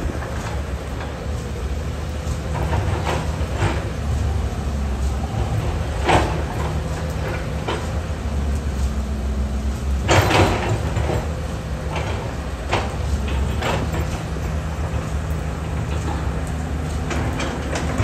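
Caterpillar hydraulic excavator's diesel engine running steadily under load as it digs, with the bucket knocking and clattering against soil and rock several times; the loudest clatter comes about ten seconds in.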